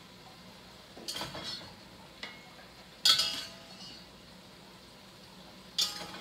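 Slotted spoon scooping browned chicken pieces out of a cast-iron Dutch oven onto a plate: a few separate clinks and scrapes of the spoon against the pot and the plate, the loudest about three seconds in.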